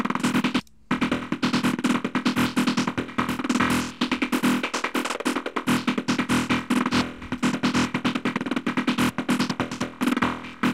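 Psytrance sequence from the Serum software synth looping: a fast run of short, filtered synth notes, with an LFO modulating the filter's cutoff and resonance. The sequence breaks off briefly just under a second in, then carries on.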